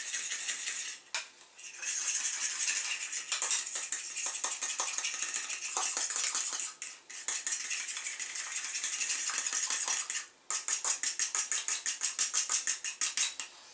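A spoon clinking and scraping against a small porcelain bowl as a sauce is stirred briskly, with a few short breaks. In the last few seconds the strokes settle into a quick, even rhythm.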